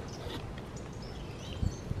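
Large kitchen knife cutting raw lamb on a thick wooden board, with two dull knocks of the blade striking the board near the end. Small birds chirp in the background.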